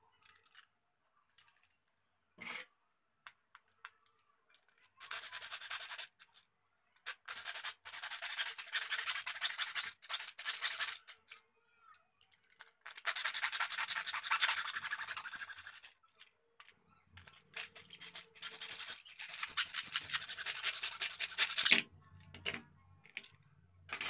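Aerosol spray-paint can spraying in four hissing bursts of one to four seconds each.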